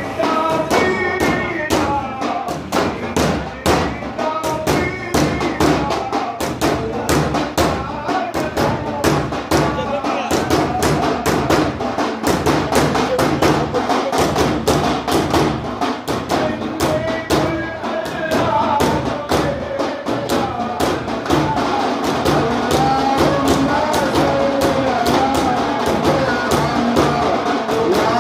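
Daf frame drums beaten in a fast, even rhythm under singing of a Sufi devotional chant (sama).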